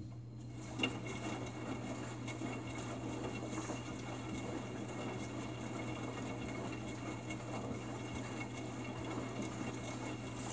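Samsung WF45N5300AW front-loading washer tumbling its drum, water sloshing and splashing inside it, starting with a click about a second in and then running steadily over a low steady hum.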